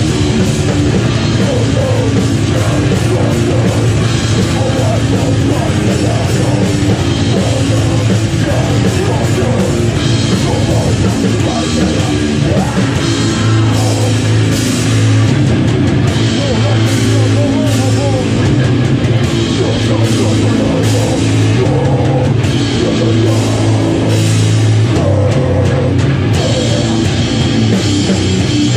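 Heavy metal band playing live and loud, with drum kit, guitar and bass going without a break.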